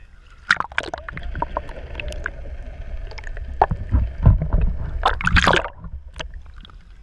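Water sloshing and gurgling around an action camera as it is dipped beneath the surface, with sharp knocks and clicks against its housing and a loud churning splash a little after five seconds.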